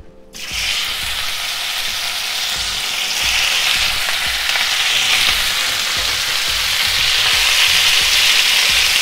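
Cubes of beef shoulder sizzling in very hot vegetable oil in a frying pan, starting abruptly and growing a little louder about three seconds in. The oil is hot enough that the meat sears rather than stews.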